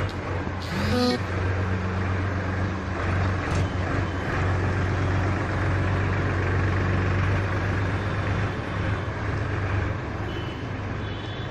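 Tractor's diesel engine running steadily under way, a low, even hum.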